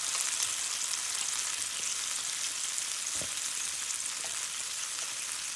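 Oil sizzling and crackling in a flat pan with fried ginger, garlic, green chilli and spring onion as chilli sauce goes in, with a single light knock about three seconds in.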